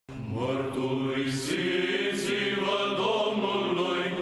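Chanted vocal music, with voices holding long, slowly shifting notes, playing as intro music.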